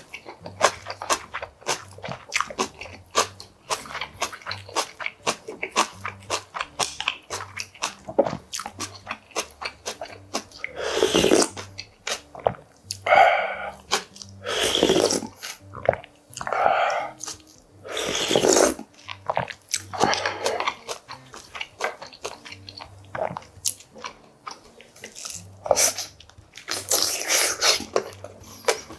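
Close-up eating sounds from a bowl of Korean beef short-rib soup (galbitang): rapid wet chewing clicks, then a run of several loud slurps of broth from a spoon in the middle, and another near the end.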